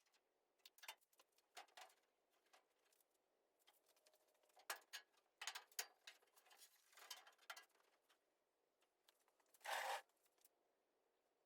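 Faint handling noises from measuring work: scattered light clicks and short scrapes, with one brief, louder scrape near the end.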